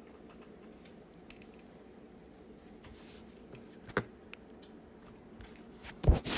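Quiet room with faint rustling and a sharp click about four seconds in. Near the end, a person's loud breath sets in, the start of a sneeze from a stuffy nose.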